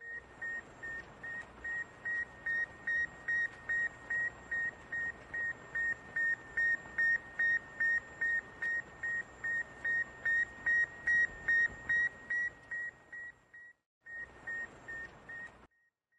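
Electronic beeping from an animated graphic's sound effect: a short, high beep repeating evenly about two to three times a second over a faint hiss. It grows louder, then fades and breaks off briefly near the end.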